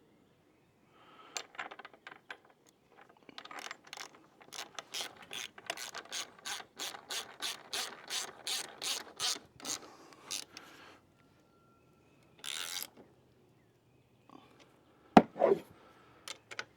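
Ratchet wrench turning a bolt on the bike trailer, a steady run of clicks at about three a second that stops about eleven seconds in. A short scrape and one sharp knock follow near the end.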